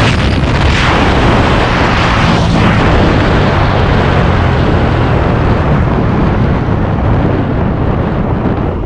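Loud wind rushing and buffeting on the microphone of a camera mounted on a Suzuki Avenis 125 scooter riding at about 100 km/h, with the scooter's engine humming low underneath. The rush eases over the last few seconds as the scooter slows down.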